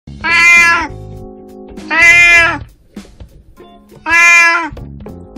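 An 18-year-old calico cat meowing loudly three times, each call under a second long and about two seconds apart, over steady background music.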